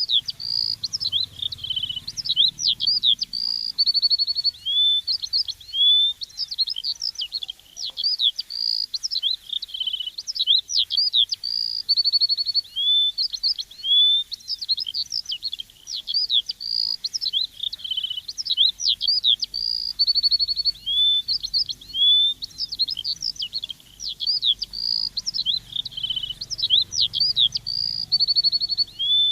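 Songbird chirping continuously in quick, high, sweeping notes, with a short buzzy trill every few seconds; the same run of phrases recurs about every eight seconds.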